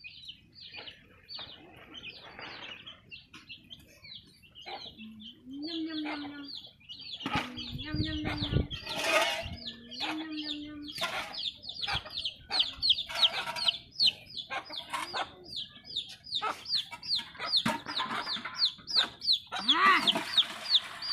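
Chicks peeping over and over in short, high, falling cheeps, several a second, with a hen clucking low now and then. A short scraping noise comes about eight seconds in.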